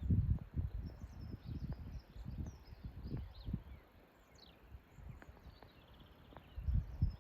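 Wind gusting on the microphone, strongest at the start and again near the end, with small birds chirping and twittering throughout.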